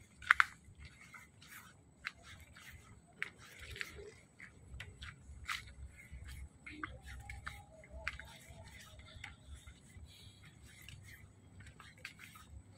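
Footsteps on a bamboo-slat boardwalk strewn with dry leaves: irregular clicks, creaks and leaf crackles as the slats take each step, with a sharp double click at the very start.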